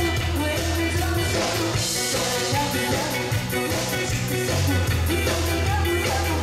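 Live band playing an upbeat Hokkien dance-pop song with a steady beat and held bass notes, a singer's amplified vocal over it.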